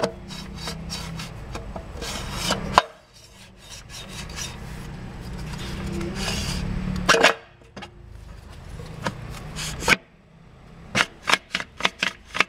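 Metal rubbing and scraping as the center plate of a Ford E4OD automatic transmission is worked down into the aluminium case by hand. It comes in two long scrapes, each ending in a sharp metallic click. A knock follows, then a quick run of clicks near the end as the plate shifts into place.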